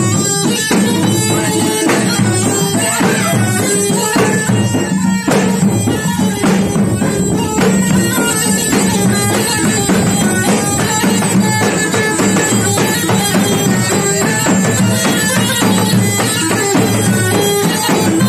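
Gulf goatskin bagpipe (jirba) playing a loud, reedy folk melody, with double-headed barrel drums beating a steady rhythm under it.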